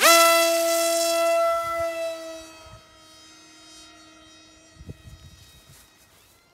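Brushless electric motor of a flying wing (SunnySky 2212 1400KV on a 6x6 propeller) spinning up sharply to full throttle at launch. It sets into a high, steady whine, then fades over a few seconds as the plane climbs away. A few low thumps come later.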